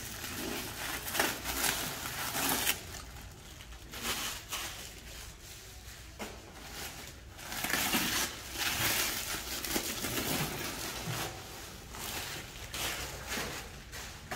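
Clear plastic wrapping film crinkling and rustling as it is pulled off and handled, in irregular bursts.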